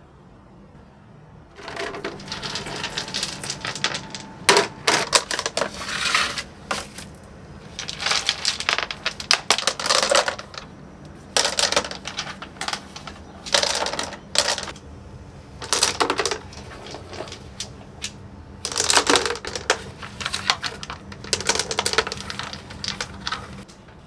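Smooth white pebbles clattering as handfuls are dropped into a plastic bucket, stone knocking on stone. The clatter comes in repeated bursts every couple of seconds.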